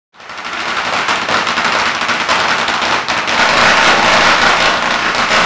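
A long string of firecrackers going off: a dense, rapid crackle of bangs that starts abruptly, builds over the first second and keeps on without a break.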